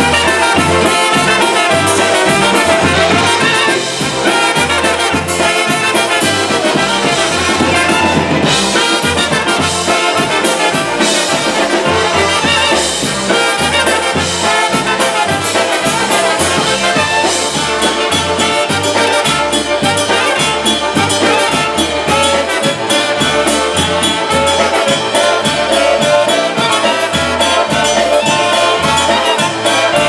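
Live polka band playing, with two trumpets and a clarinet carrying the tune over a steady bass beat.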